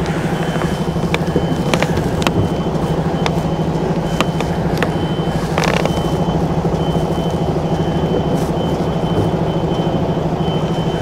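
Mercedes Actros lorry's diesel engine running at low revs while the truck reverses slowly onto a loading bay, with the reversing alarm's high thin tone sounding on and off. A few sharp clicks come through over the engine.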